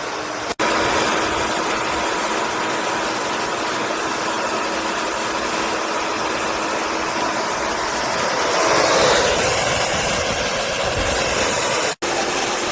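Yeryork 15-amp electric wood chipper's motor running with a steady, noisy hum, swelling louder about nine seconds in. The sound cuts out abruptly twice.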